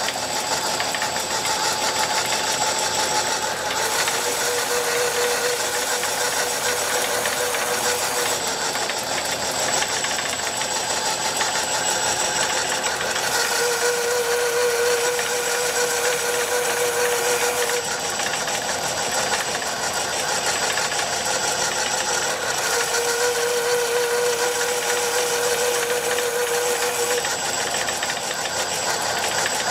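Waltham Watch Company automatic screw machine, belt-driven, running through its screw-making cycle with a steady clatter of cams, gears and slides. A hum comes in for about four seconds of each cycle and then drops out, repeating about every nine seconds.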